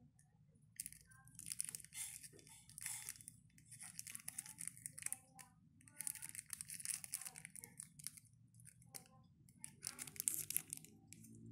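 Clear plastic packaging bag crinkling and rustling in irregular bursts as the small amplifier board inside it is handled and turned over.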